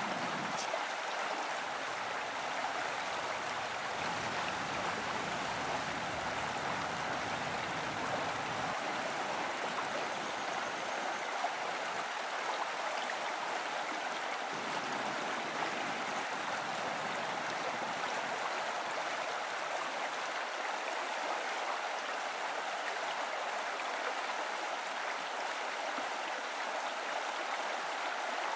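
A shallow river running fast over a stony bed: a steady, even rush of water.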